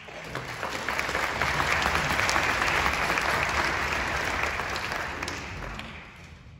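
Audience applauding: many hands clapping at once, swelling over the first second and dying away near the end.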